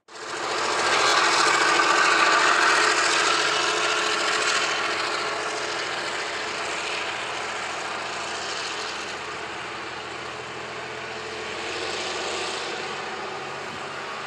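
An EMD SW1500 switcher locomotive's diesel engine running steadily as the locomotive rolls slowly forward with a string of freight cars. A loud rushing noise over the engine is strongest about two seconds in and then eases off.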